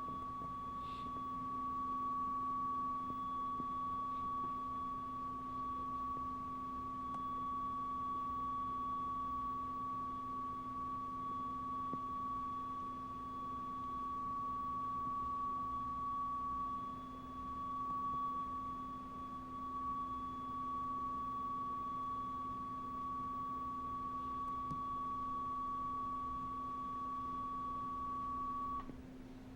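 Steady high-pitched tone from a VHS tape's playback over a low steady hum, holding one pitch and cutting off near the end.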